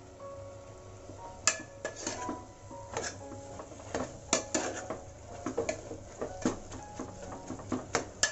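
Steel spoon stirring greens in an aluminium pressure cooker, scraping and clinking irregularly against the pot's sides and bottom. The clinks come more often in the second half.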